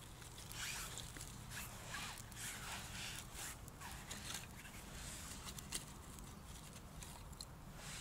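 Dry split kindling sticks being handled and laid over a small newly lit campfire: light wooden clicks and rustles, with one sharper knock about two-thirds of the way through.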